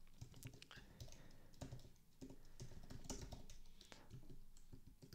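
Faint typing on a computer keyboard: quick, irregular key clicks.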